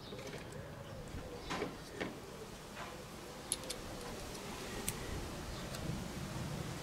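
Scattered light clicks and taps at an irregular pace from handling and unclipping the side panels of a compact PC case.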